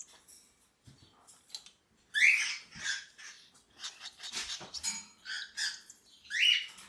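Cockatiel chick's raspy begging calls while being syringe-fed: short scratchy chirps and clicks, with two loud rising calls, one about two seconds in and one near the end.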